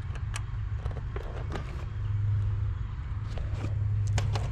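Light clicks and rustles of wires being handled and pulled in an air-conditioner condenser's electrical panel, over a steady low hum.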